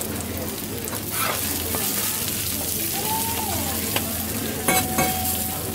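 Okonomiyaki sizzling steadily on a teppan griddle, with metal spatulas clacking and scraping against the hot plate a few times; the two loudest clacks come near the end.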